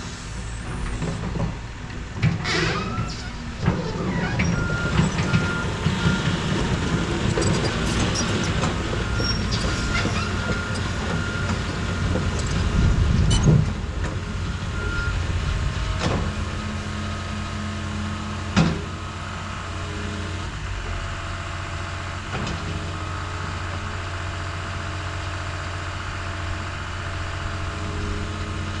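Heavy equipment engine running steadily while a backup alarm beeps repeatedly for about ten seconds. Several sharp metal clanks and knocks come through, the loudest about 13 seconds in.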